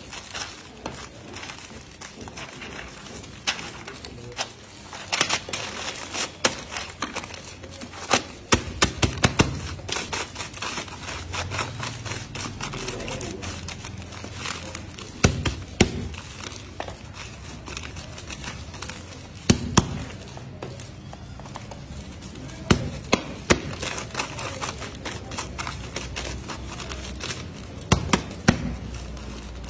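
Paper-wrapped beedi bundles being handled and packed by hand into a small wooden box: paper rustling, with clusters of sharp taps and knocks every few seconds as bundles hit the wood.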